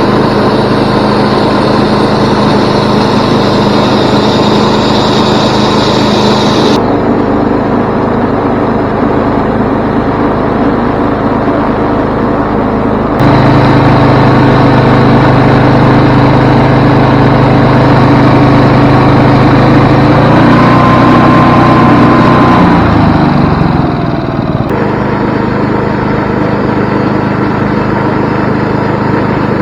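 An engine running steadily. Its sound changes abruptly a few times, and about two-thirds of the way through a whine falls in pitch as the engine slows.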